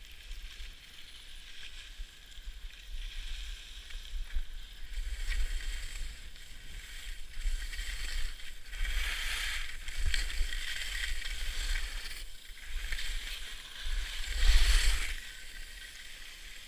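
Skis scraping and hissing over hard-packed snow in a run of turns, the scrape swelling with each turn and loudest near the end, over a low rumble of wind on the helmet camera's microphone.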